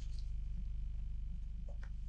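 Steady low hum with no other clear sound, and two or three faint soft ticks near the end.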